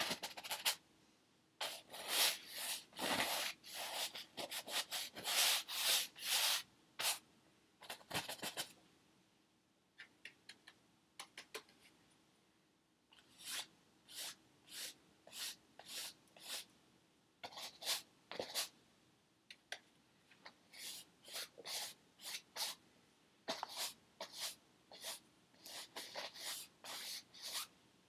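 Paintbrush strokes on a stretched canvas: quick scrubbing and sweeping rubs of the bristles, coming in runs of many short strokes with brief pauses between.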